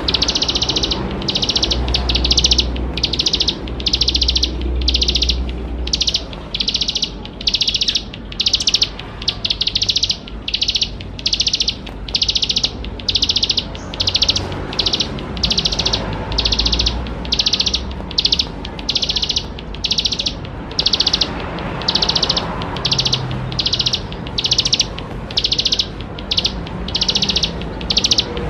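Plain prinia (ciblek sawah) singing continuously: a long, even run of short, high repeated notes, a little over one a second.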